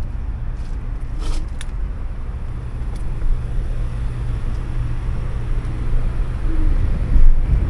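Steady low rumble of wind buffeting the microphone and road noise from a slowly rolling electric scooter, with a couple of brief clicks about a second in. It grows louder near the end as the scooter picks up speed.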